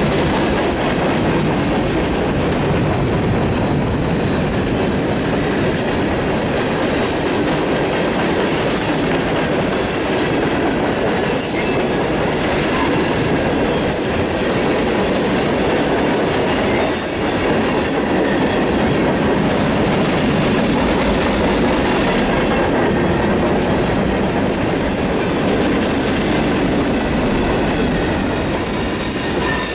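Freight train's tank cars and covered hoppers rolling past: a steady rumble of steel wheels on rail, with brief high-pitched wheel squeals now and then.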